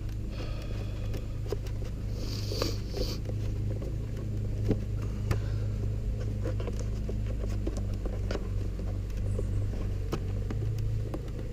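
Scattered light clicks and a brief rustle of hands handling small parts and wiring, over a steady low hum.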